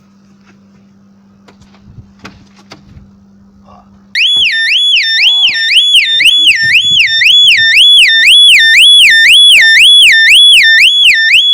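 Volvo S60's freshly repaired car-alarm siren sets off about four seconds in after a few faint clicks, then wails loudly, sweeping up and down about twice a second: the alarm triggered by a break-in attempt.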